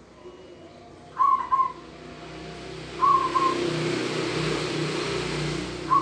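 Caged zebra dove (perkutut) cooing: three short calls a couple of seconds apart, each a quick run of soft whistled notes. A broad rushing noise swells underneath in the second half.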